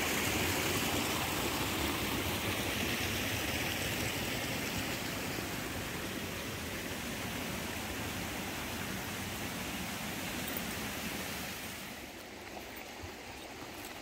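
Stream water rushing steadily, easing off gradually and dropping away near the end.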